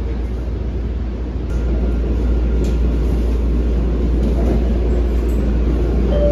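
Running noise inside an MBTA Blue Line subway car as the train pulls out and gets under way: a steady, loud low rumble of wheels and motors, which grows louder about one and a half seconds in as the train picks up speed.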